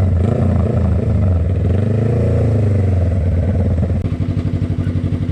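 Suzuki GSX250R's parallel-twin engine rising in revs and falling back over a few seconds, then settling to a steady, pulsing idle from about four seconds in.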